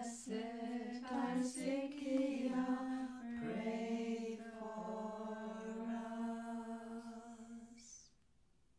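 Unaccompanied liturgical chant sung at the close of a prayer: a few short changing phrases, then one long held note that stops about eight seconds in.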